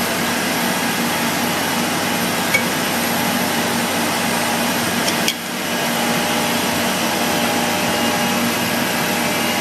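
Steady drone of a motor-driven machine running without a break, with a few faint metallic ticks from parts being fitted, around two and a half and five seconds in.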